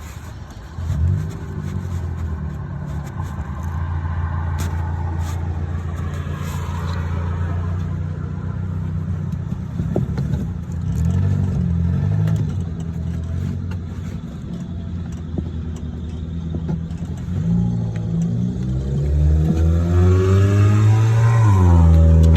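A car engine running, its pitch climbing as it revs up near the end.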